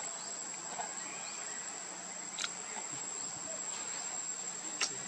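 Steady high-pitched drone of insects, with two sharp clicks about two and a half seconds apart.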